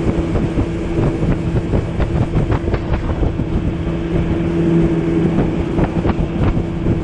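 Outboard motor of a small jon boat running steadily under way, an even engine drone with a constant pitch. Short knocks from the hull meeting the water are scattered through it.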